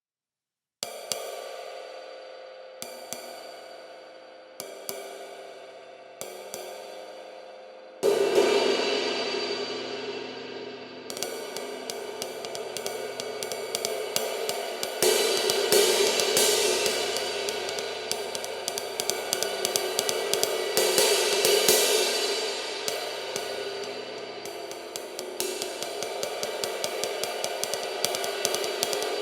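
Leon Cymbals 23-inch flat-bell lathed ride cymbal. It is struck four times singly, each note left to ring and die away. About eight seconds in comes a much louder hit with a full wash, and from about eleven seconds it is played as a continuous ride pattern, its wash swelling and easing.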